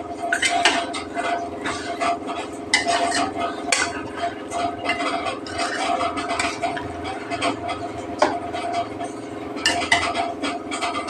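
Metal ladle stirring and scraping in a stainless steel kadai of thick curry, with irregular clinks and knocks against the pan's sides throughout, over a steady hum.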